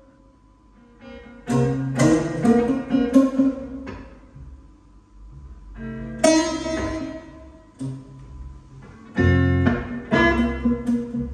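Music: an instrumental blues passage of plucked guitar phrases over bass, played in separate bursts with short pauses between them.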